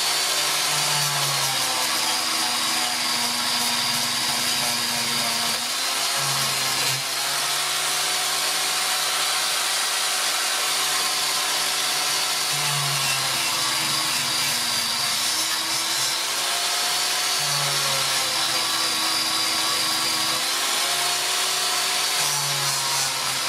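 Electric angle grinder running continuously with an abrasive disc pressed against saw-blade steel, grinding off rust. The motor's whine dips in pitch and recovers several times.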